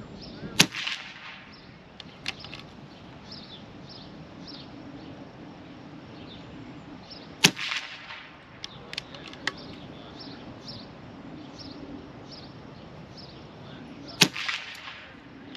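Three shots from a .25-calibre Cattleman M1 air rifle, each a sharp crack with a short ring after, spaced about seven seconds apart. A few lighter clicks fall between the shots.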